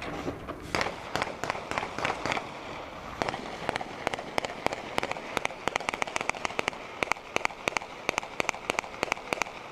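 Gunshots fired into the air by several shooters: sharp cracks, several a second, beginning under a second in, pausing briefly, then coming thicker and faster toward the end.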